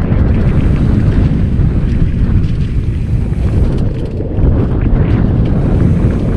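Loud, steady low wind rumble buffeting the microphone, as on a camera carried along by a moving dirt bike on an enduro trail.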